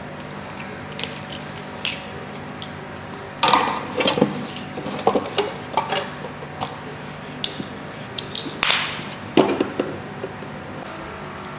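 Hard plastic parts of a toy pottery wheel being handled and fitted together: a run of irregular knocks and clatters, loudest a few seconds in, over a faint steady hum.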